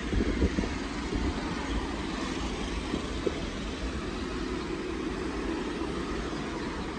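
City street traffic: a steady rumble of cars and motor scooters going by on the road, with a scooter engine passing close near the end.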